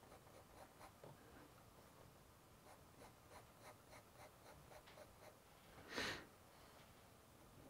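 Fountain pen nib scratching faintly on sketchbook paper in many quick, short strokes, with a brief louder hiss about six seconds in.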